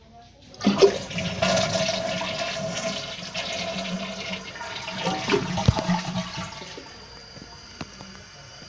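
A 2007 Kohler Wellworth 1.6-gallon-per-flush toilet flushing. The tank empties with a loud rush of water starting just under a second in, which fades after about six seconds into a quieter steady hiss as the fill valve refills the tank.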